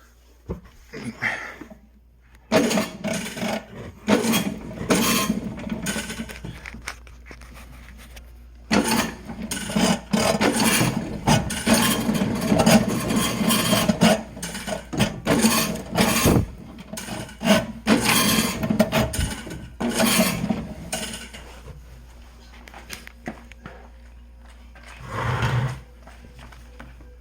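Steel cable of an electric drain auger rubbing and scraping in irregular bursts of a few seconds each, as it is worked into a clogged drain.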